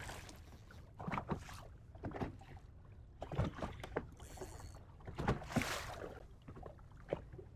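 Water slapping and splashing around a small fishing boat, over a steady low rumble, with several short irregular splashes or knocks.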